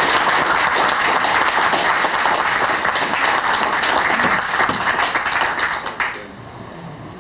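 Audience applauding: many people clapping together, the applause dying away about six seconds in.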